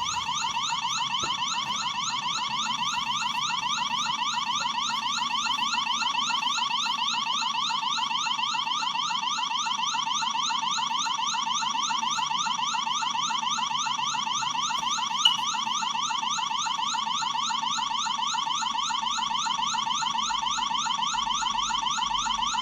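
Security camera's built-in alarm siren sounding a continuous electronic wail: rapid rising sweeps repeating several times a second at a steady level.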